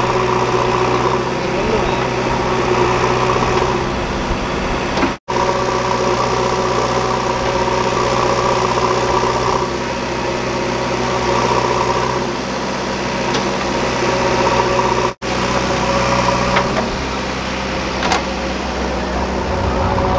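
Diesel engines of a JCB 3DX backhoe loader and a Kubota MU4501 tractor running steadily while soil is loaded into a steel trolley, with a few faint clanks in the second half. The sound cuts out briefly twice, about 5 and 15 seconds in.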